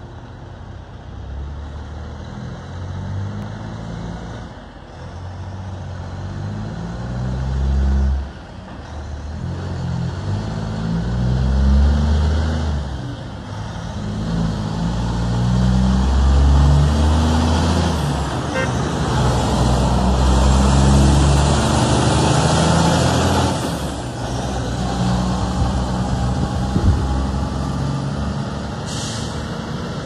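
Heavy diesel truck engine pulling away and working up through the gears: the engine note climbs, drops back at each shift and climbs again, several times over. It grows louder as the truck passes.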